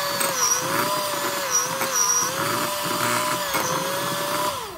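Electric hand mixer running with a steady motor whine that dips and recovers slightly as its beaters work through thick oat cookie dough in a glass bowl. The whine falls away as it is switched off near the end.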